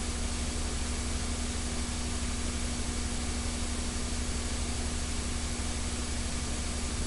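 Steady hiss with a low electrical hum and a fainter higher hum tone, unchanging throughout: the recording's own background noise, with no speech.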